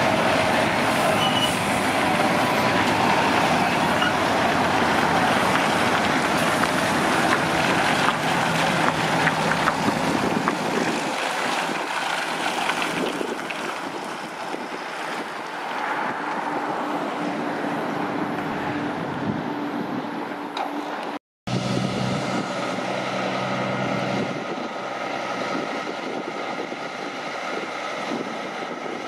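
Heavy truck driving past, loud engine and road noise that eases off after about ten seconds. After a brief cut about two-thirds of the way in, a truck engine is heard running steadily.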